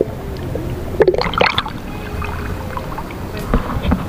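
Water splashing and gurgling around a small fishing boat over a steady low rumble, with a short voice call about a second in and two knocks near the end.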